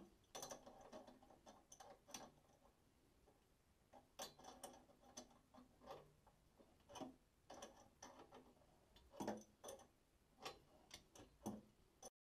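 Wrench clicking and clinking against metal plumbing fittings in irregular bursts, as a faucet supply hose nut is tightened onto the shut-off valve under the sink.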